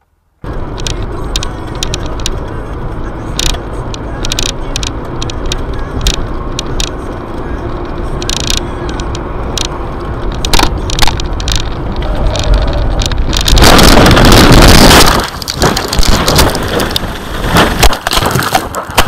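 Car interior road and engine noise picked up by a dashcam, with frequent sharp clicks. About thirteen and a half seconds in, a loud rushing noise as the car runs off the road, then a series of heavy thuds and crunches as it crashes into the trees.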